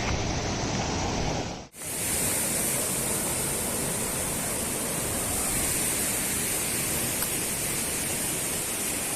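Rushing stream water, a steady even rush. About two seconds in it cuts off abruptly and comes back brighter and hissier.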